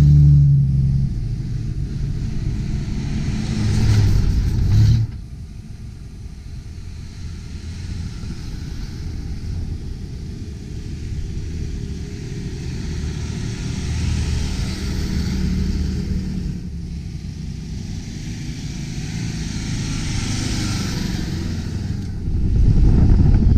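4WD engines driving past on a soft sand track, one after another. A Jeep Cherokee pulls away at the start and its sound cuts off suddenly about five seconds in. A second 4WD approaches and passes around the middle. A loud low rumble comes in near the end.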